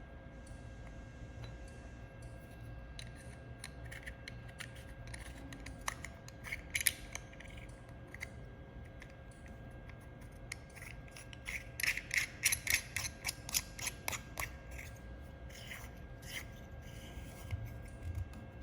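Light clicking and scraping as small parts of the welder's lens holder are handled, with a dense run of rapid clicks near the middle, over a faint steady hum.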